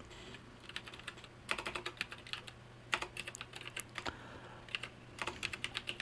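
Typing on a computer keyboard: quick runs of key clicks with short pauses between them, as a folder path is typed, over a faint steady low hum.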